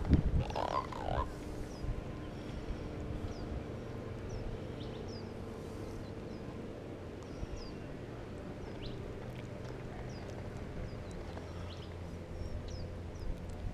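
Catfish being handled and unhooked by hand: low rustle and handling noise, with a brief wavering creak about half a second in. Small bird chirps are scattered through it.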